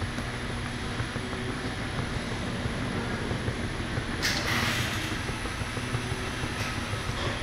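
Automated pot-washing machine running: conveyor belts, a brush roller and its electric gear motors give a steady mechanical hum. A brief hissing burst comes about four seconds in, and there are a few faint ticks near the end.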